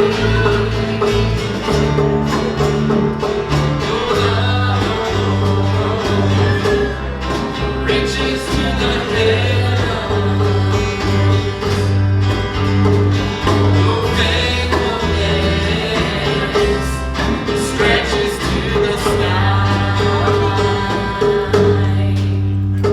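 Live worship band playing the instrumental close of a country-style gospel song, with guitar over held bass notes that change about every second.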